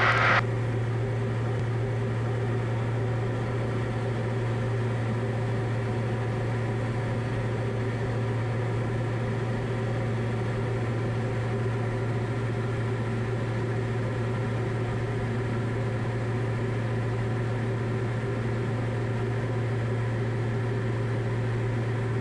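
Diamond DA40 light aircraft's engine and propeller droning steadily in cruise, heard from the cockpit.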